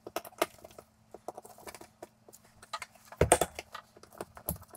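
Hand screwdriver driving a mounting screw into a steel 4x4 electrical box on the wall, turned by hand rather than with the impact driver so as not to strip the screw: a run of small clicks and metal scrapes, with a louder cluster of knocks a little after three seconds in and another knock near the end.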